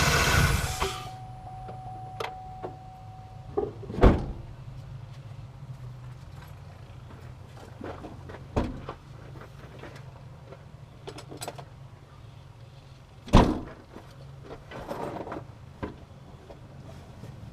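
Chevy pickup engine running, then shut off about half a second in. A steady beep follows for about three seconds, over a faint low hum, and loud thumps come about four and thirteen seconds in, with a lighter knock between.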